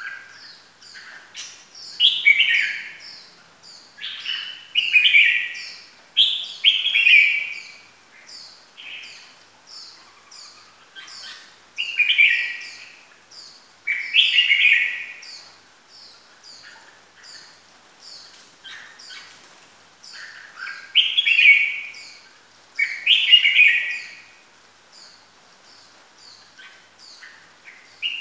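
Red-whiskered bulbul singing: loud, short whistled phrases that fall in pitch, given in clusters a couple of seconds apart with a long pause midway, over a steady run of faint, high, thin chirps.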